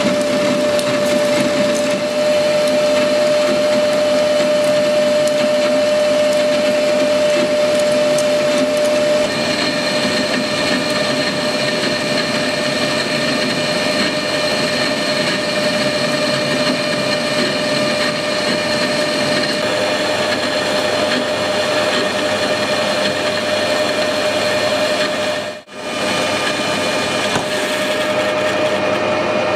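Metal lathe running steadily under a cutting load as a carbide insert tool turns a metal bar, with a constant whine and a higher whine added for about ten seconds in the middle. The new tool is breaking the chip into small, manageable pieces, which makes a good cut. The sound cuts out for a moment about 26 seconds in.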